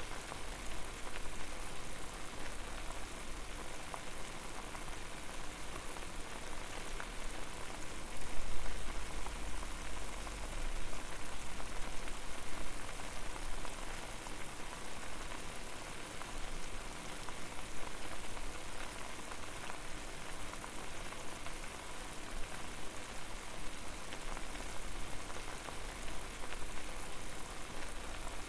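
Water boiling hard over a fire: a steady bubbling hiss full of small pops, with a low rumble that swells briefly about eight seconds in.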